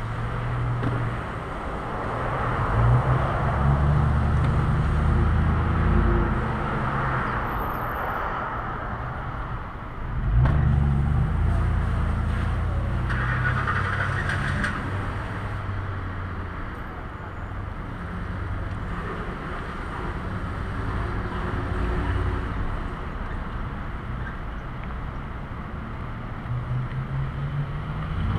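Motor-vehicle traffic passing out of sight: engine rumble and tyre noise that swell and fade as vehicles go by, loudest a few seconds in and again about ten seconds in, and growing louder again near the end.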